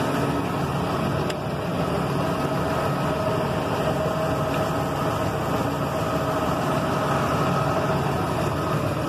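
Fendt 930 Vario tractor's six-cylinder diesel engine idling steadily, running smoothly, with a faint steady whine over it.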